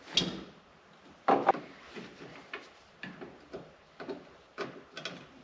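Irregular clicks and knocks of parts and wiring being handled under a car's dashboard, with two louder knocks near the start and about a second in.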